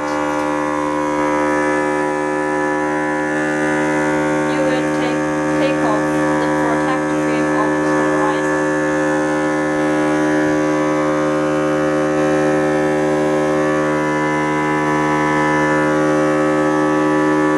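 Vacuum pump of an OCA polarizer-film laminating machine running with a steady hum, pulling vacuum to hold the polarizer film down on the LCD.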